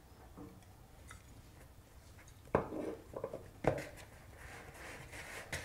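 Hand handling oiled pizza dough in a plastic bowl, with quiet rubbing and two sharp knocks about a second apart.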